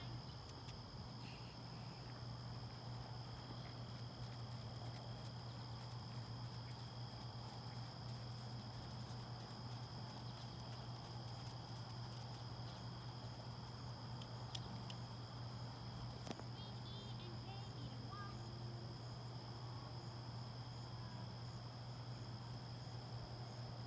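Insects chirring steadily in a continuous high drone, over a steady low hum.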